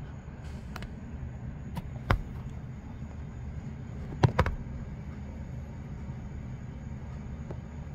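Steady low rumble of a fire truck's engine idling, without a siren, cut by a few sharp knocks, the loudest about two and four seconds in.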